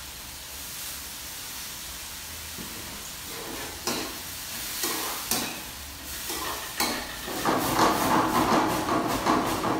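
Vegetables and sauce sizzling in a large metal pan over a gas flame, with a metal ladle knocking and scraping against the pan several times from about four seconds in. Near the end the pan is tossed and the sizzling grows louder.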